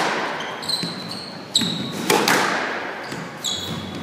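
Squash rally: several sharp, echoing hits of the ball off rackets and court walls, roughly one every second. Short high-pitched shoe squeaks on the wooden court floor come between the hits.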